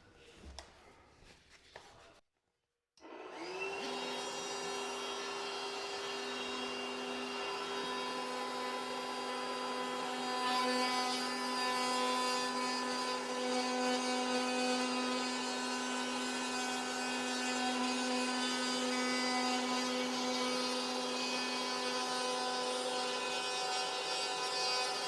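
Power tool cutting along marked lines in drywall: the motor starts about three seconds in, winds up briefly and then runs steadily with a high, even whine.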